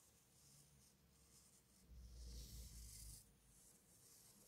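Faint scratching of a marker pen drawn along cardboard while tracing around bottle bases, strongest from about two seconds in for about a second.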